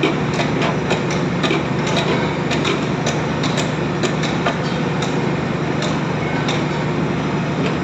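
A machine's engine running steadily, with frequent irregular knocks over it.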